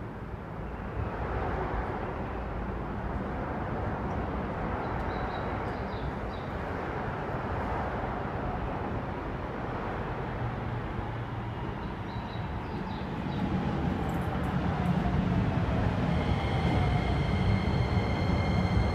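Hokuso Railway 7500 series electric train approaching and pulling into the platform. The rumble of its wheels on the rails grows louder over the last several seconds, and a steady high whine joins in near the end as it slows.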